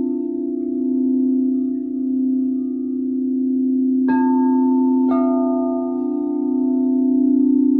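Crystal singing bowls ringing: a low bowl holds a steady tone that wavers slowly. About halfway through, two bowls are struck about a second apart, and each adds a higher ringing tone that lingers over the drone.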